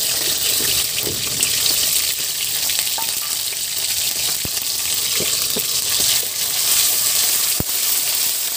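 Hot oil sizzling steadily in a metal karai as spice pastes and tomato pieces fry, with a metal spatula stirring and a few sharp knocks against the pan.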